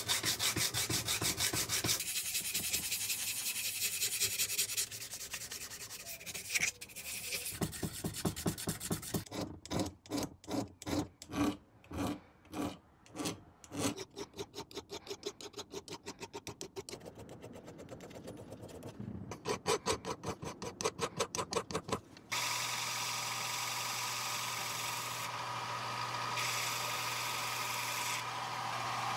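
A file and abrasive are rubbed back and forth by hand over the steel head of a claw hammer, in runs of strokes that come about two a second in the middle. About three-quarters of the way through, a bench belt sander starts running steadily as the hammer's striking face is held to the belt.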